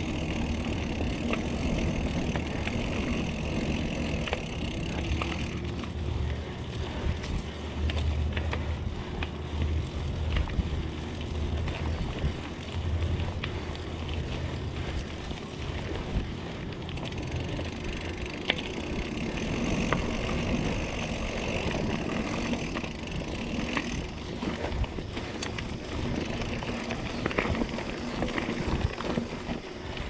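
Diamondback Atroz 3 mountain bike rolling along a dirt singletrack: steady tyre noise on the dirt, with frequent short clicks and rattles from the bike over bumps and roots. A low rumble of wind on the microphone runs under it.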